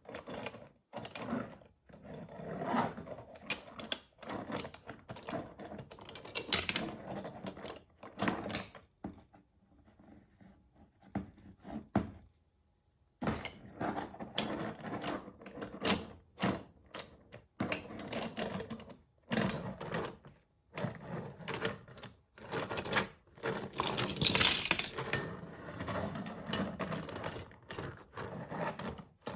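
Small diecast toy cars clattering and rattling, metal bodies and wheels making fast runs of clicks and knocks. The clatter dies down for a few seconds midway, then picks up again.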